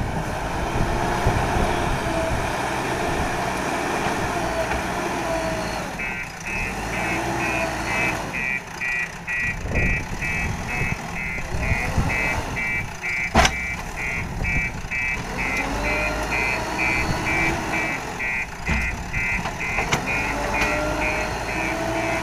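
JCB backhoe loader's diesel engine working under load, its pitch rising and falling as the hydraulics work. From about six seconds in a high electronic beep repeats about two to three times a second, and a single sharp knock comes past the middle.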